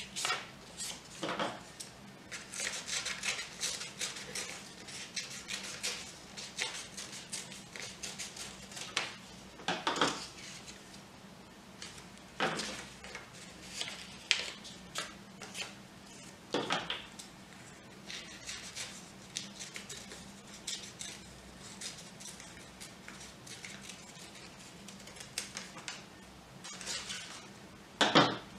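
Scissors snipping through sheets of paper, with paper rustling and crinkling as it is turned and handled; irregular short snips, a busier run of them a few seconds in, and a few louder knocks against the table, the last near the end.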